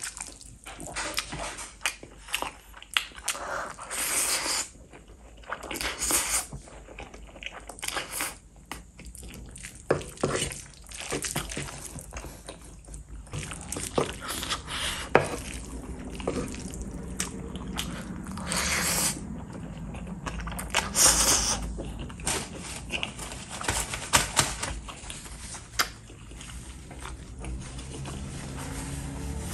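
Close-miked eating of spicy Korean fire noodles: irregular wet smacks, clicks and chewing, with a few louder slurps.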